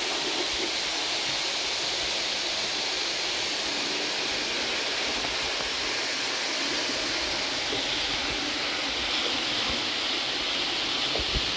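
Roco H0 model trains running at speed on the layout's track, a steady rushing hiss of wheels and motors.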